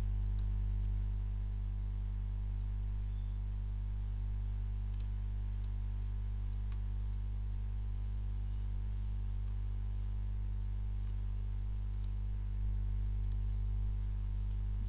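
Steady electrical mains hum, a low drone with a ladder of fainter overtones, picked up by the recording setup. A few faint clicks can be heard around the middle.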